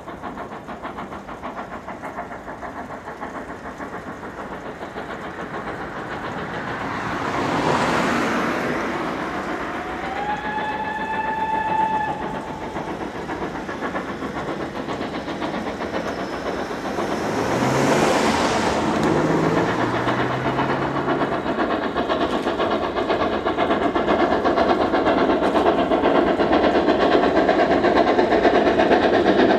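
Steam locomotive working a train toward the listener, growing steadily louder. About ten seconds in, a steam whistle gives one note lasting roughly two seconds. Two swells of rushing noise, about eight and eighteen seconds in, rise and fall over the train sound.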